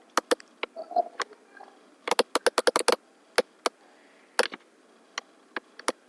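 Clicks of a computer mouse and keyboard. Single clicks, then a quick run of about nine clicks around two seconds in, then single clicks again every half second or so.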